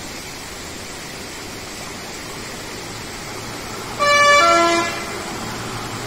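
A lorry's horn sounds once for about a second, near the end, its pitch stepping down partway through, over a steady rush of running water.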